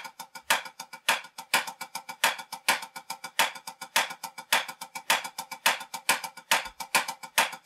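Wooden drumsticks on a drum practice pad playing a 16th-note accent exercise: a steady run of quick alternating single strokes, quiet taps with a louder accent every few notes.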